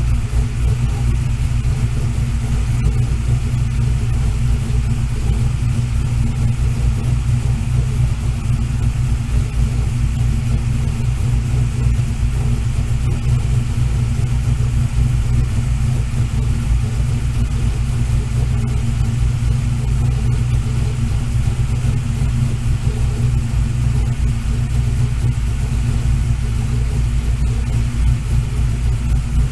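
1965 Ford Falcon engine running at a steady idle on its first start-up.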